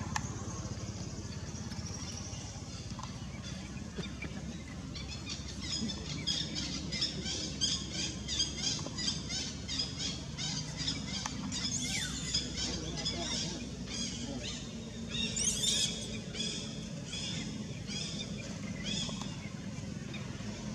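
Baby macaque crying in a run of short, high squeals, two or three a second, starting about four seconds in, with a couple of longer rising screams in the middle, the second the loudest. A steady low rumble lies underneath.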